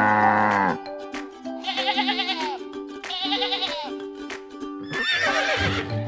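Animal call sound effects over light background music: a cow's moo at the start, two wavering sheep bleats, then a horse's whinny near the end.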